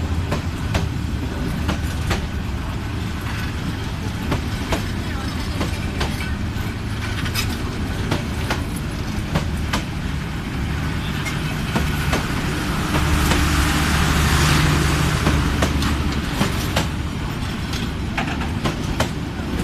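Passenger express train rolling slowly out of the station, its coach wheels clicking over rail joints again and again over a steady low rumble. A louder hiss and hum swells about two-thirds of the way through.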